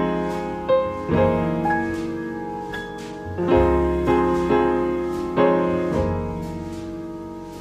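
Slow piano music: chords struck and left to ring and fade, a new chord every second or two.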